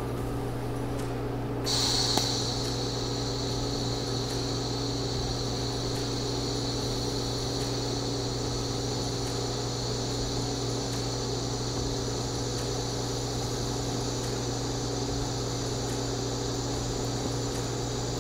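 TIG welding torch arc striking about two seconds in with a brief louder crackle, then holding as a steady high-pitched hiss while a seam is laid on a steel rifle receiver at low heat. Under it runs a steady low electrical hum.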